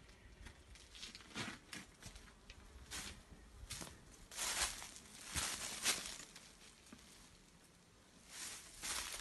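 Footsteps crunching through dry leaf litter, irregular steps with a short lull about two-thirds of the way through.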